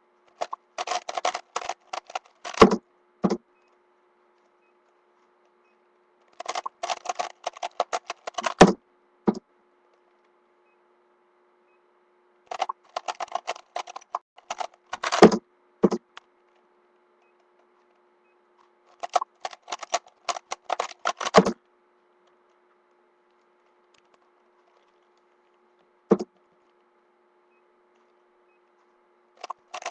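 A 3x3 speedcube being turned fast through R U R' U' six times over, in four bursts of rapid plastic clicking about three seconds long, each ending in a louder thump, with pauses between. A single click comes near the end, then the next burst starts.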